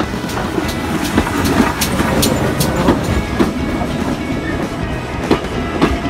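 A steam-hauled train of carriages passing close alongside on the next track, over a steady running rumble. Its wheels clack over the rail joints in sharp, irregularly spaced knocks.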